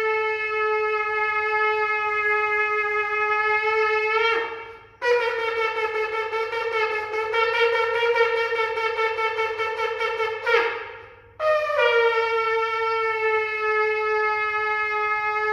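A shofar blown in three long blasts. The first is steady and ends in a quick upward slide about four seconds in. The second is broken into rapid, even pulses and also slides up at its end. The third is another steady blast starting near the end.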